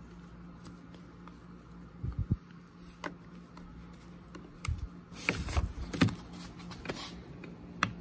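Handling noise from hands and needle-nose pliers working a new plastic purge pump bulb into the carburettor housing of an Echo CS-305 chainsaw: scattered small plastic clicks and taps, a few dull knocks, and a cluster of clicks a little after the middle as the pump is snapped into place. A faint steady hum runs underneath.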